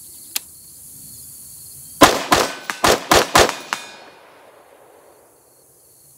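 AR-15 rifle with an 18-inch .223 Wylde upper firing about five shots in rapid semi-automatic succession over about a second and a half, with a ringing echo trailing off. The shots come from a function test of a newly fitted JP bolt carrier group; the rifle cycles each round without a malfunction.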